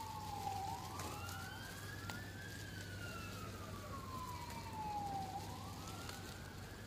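An emergency vehicle's siren wailing, fairly faint, its pitch gliding slowly down and then quickly back up, about one cycle every four to five seconds. Between one and two seconds in, a second sweep briefly overlaps it.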